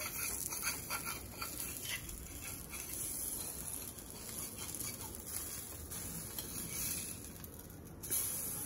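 Bread slice frying in ghee on a dosa tawa, with a light, steady sizzle. In the first couple of seconds a metal spatula scrapes and taps against the pan as it works under the slice.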